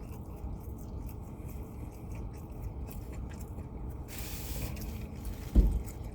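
Steady low rumble with small scraping and handling noises, a short hiss about four seconds in, and a single thump near the end.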